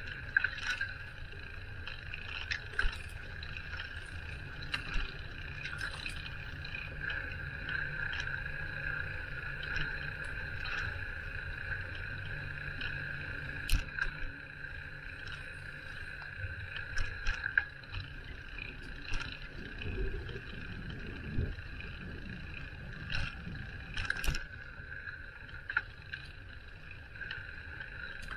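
Sounds of a bicycle being ridden: a low rumble of tyres and air, with frequent short rattling clicks and knocks from bumps, over a steady high whine.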